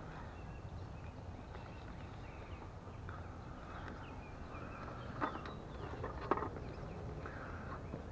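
Steady low outdoor rumble with two short sharp clicks, about five and six seconds in, as the metal-framed landing net holding a carp is handled and hooked onto a hanging dial scale.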